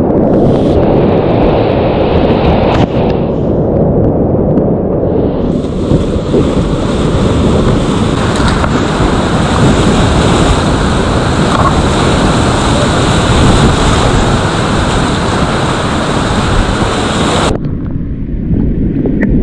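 Whitewater rapids rushing loudly around a kayak, heard up close from the boat in the current. A higher hiss joins in about five seconds in and cuts off suddenly near the end.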